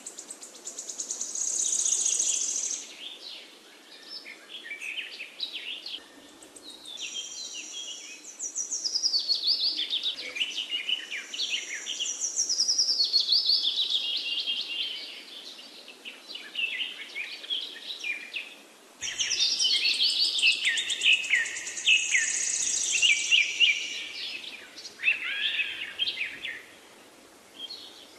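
A chorus of birdsong: many birds chirping and trilling in quick, overlapping phrases that swell and fade, with a sudden louder stretch about two-thirds of the way in.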